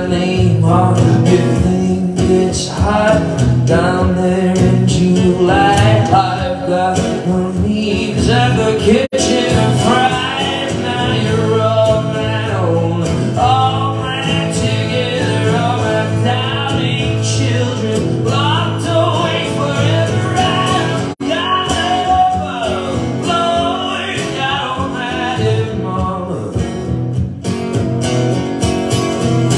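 A live song: two acoustic guitars played under a singing voice. The sound cuts out for an instant twice, about nine and twenty-one seconds in.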